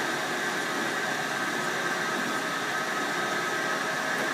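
Metal lathe running under power feed during a thread-chasing pass, a steady whine from its motor and gearing.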